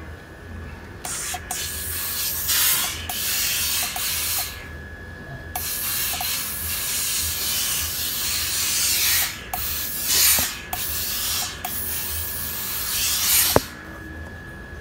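Hose-fed steam iron releasing steam with a hiss as it is pressed over a T-shirt, in three long bursts of a few seconds each, ending with a sharp click near the end.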